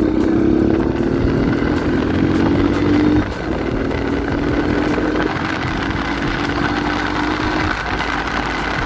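Italika 125Z's single-cylinder four-stroke engine accelerating hard through the gears: its pitch climbs, drops at an upshift about three seconds in, climbs again, and drops at another upshift near the end. Wind noise hisses on the microphone throughout.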